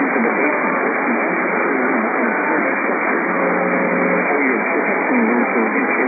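AM radio reception thick with static hiss, the sound narrow and muffled, with a voice half-buried under the noise.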